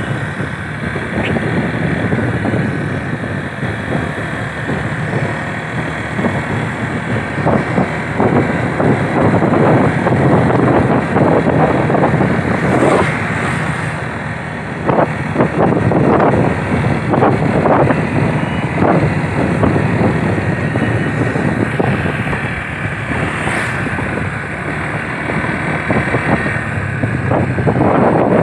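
A vehicle travelling along a road with its engine running, and wind gusting irregularly across the microphone.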